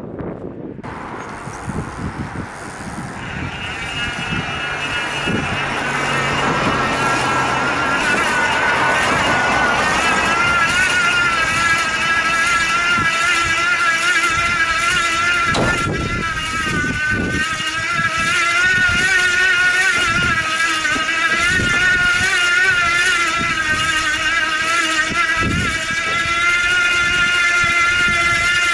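Cyclone 250 W, 24 V bottom-bracket motor whining as it drives the trike's chainset: a high, steady whine that sets in about three seconds in and grows louder, its pitch wavering slightly. Under it are low tyre and road rumble and a few knocks.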